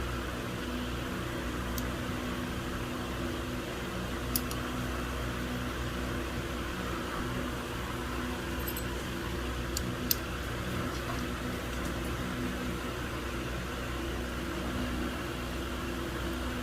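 Steady low hum, like a room fan or appliance, with a few faint sharp clicks, the clearest about four and ten seconds in, as small brake parts are handled and fitted back into the caliper.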